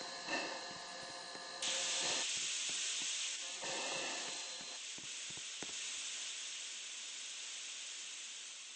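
Steam hissing from a steam locomotive. The hiss grows louder about a second and a half in, then slowly fades, with a few faint knocks under it in the first half.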